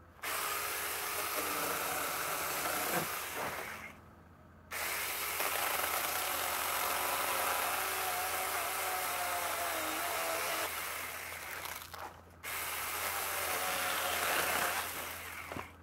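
Saker 4-inch, 20-volt cordless electric mini chainsaw cutting through a palm frond in three bursts, the chain and motor running under load with its pitch shifting as it bites. It stops briefly about four seconds in and again about twelve seconds in.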